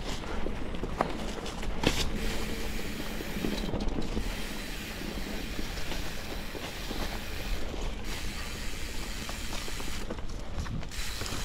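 Mountain bike rolling along a narrow overgrown dirt singletrack: a steady rattle of tyres and frame over the rough ground, with a few sharp knocks over bumps and leafy plants brushing past the handlebars.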